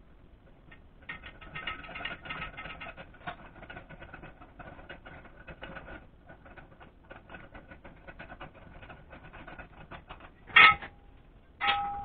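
Rapid light metallic clicking and tapping as a steel tie rod and its rod ends are fitted to a garden tractor's steering arms. Near the end come two sharp metal clanks about a second apart, the loudest sounds here, the second ringing on briefly.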